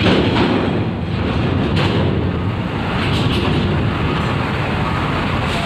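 Coach bus diesel engine running as the bus drives slowly up a steel ferry loading ramp, a steady low rumble mixed with tyre and ramp noise, with a few faint knocks from the ramp plates.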